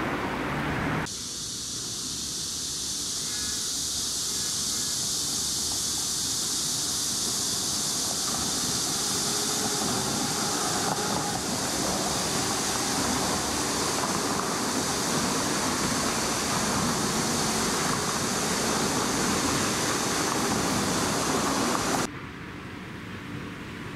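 A steady high-pitched hiss that starts abruptly about a second in and cuts off suddenly near the end, over a low background rumble.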